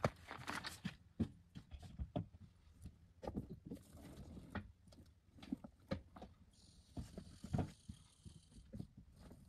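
Faint, irregular knocks and clunks of someone moving about in and around a camper trailer, with a short hiss about seven seconds in.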